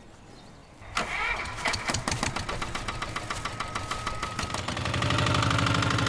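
A small farm tractor's engine comes in abruptly about a second in and runs with a fast, even chugging. It grows louder near the end as the tractor pulls a loaded firewood trailer.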